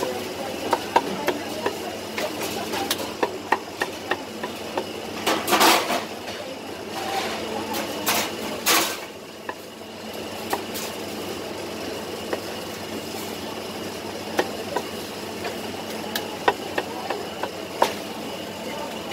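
Cleaver chopping poached chicken on a round wooden chopping block: sharp, irregular knocks over a steady background din, with two louder, longer rushes of noise about five and a half and nine seconds in.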